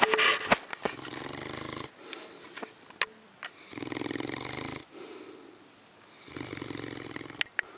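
Mastiff snoring: three long rasping snores about a second each, spaced roughly two and a half seconds apart, after a louder noisy burst at the start. A few sharp clicks fall in between.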